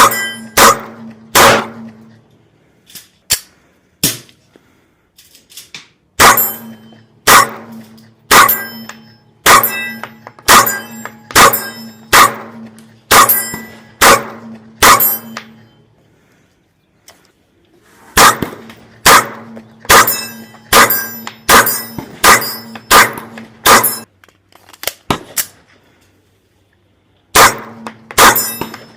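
Airsoft Staccato HD P4 gas-blowback pistol fired in strings of sharp, metallic-sounding shots at about two a second, with a few pauses between strings.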